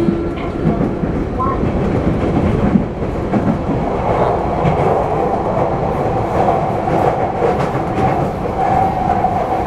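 Interior running noise of a Sotetsu 8000 series electric train car (equipment-updated, with a Hitachi IGBT-VVVF inverter) at speed: steady wheel and track rumble with clacks over the rail joints. A steady tone stops just after the start, and a higher steady band comes in about four seconds in.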